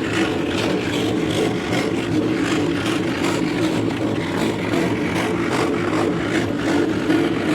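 Scroll saw running steadily, its blade cutting through teak wood with a constant motor hum under a rasping hiss.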